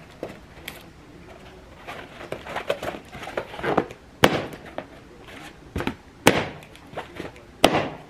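Blue latex party balloons being burst with a knife: three loud, sharp pops about a second and a half to two seconds apart in the second half, with a smaller one among them. Before them come rustling and rubbing sounds of the balloons being handled.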